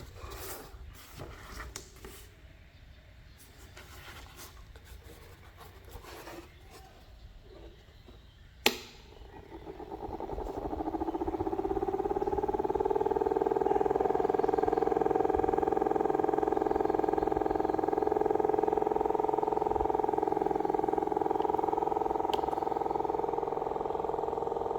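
Light clicks and rustles of handling, then a sharp click about nine seconds in, after which the small battery-powered motor of a homemade fan spins up over a couple of seconds and keeps running with a steady hum.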